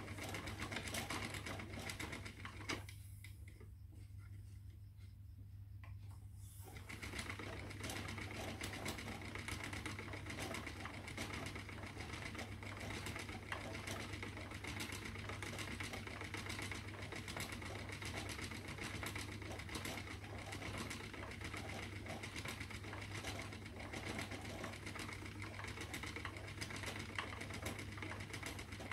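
Spinning wheel running steadily while plying silk and merino yarn: a whirring mechanical sound with rapid clicking over a low hum. The whirr drops away about three seconds in and starts again about three seconds later.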